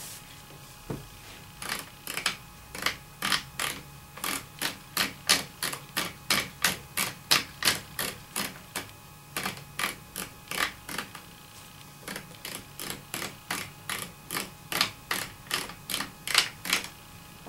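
The magazine cap on a Mossberg 535 pump shotgun being unscrewed by hand. Its detent clicks about two to three times a second, with a short pause about two-thirds of the way through.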